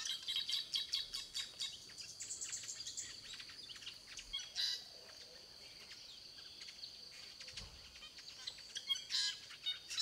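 Drongos calling: rapid high chirps and clicking twitters, busiest in the first few seconds, with a louder single call near the middle and another flurry of chirps near the end.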